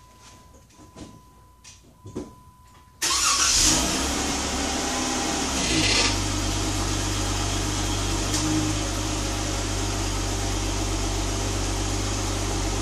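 A few faint clicks, then about three seconds in the 2017 Jeep Wrangler's 3.6-litre V6 is started: it cranks, catches and settles into a steady idle.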